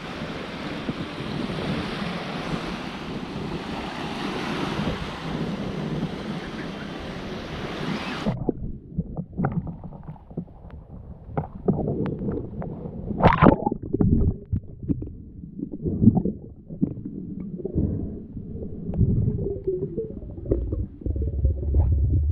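Small waves washing up the sand with wind on the microphone, a steady hiss for about eight seconds. It then turns abruptly to a muffled sound as the camera goes into the sea: sloshing water with scattered knocks and splashes from swimming.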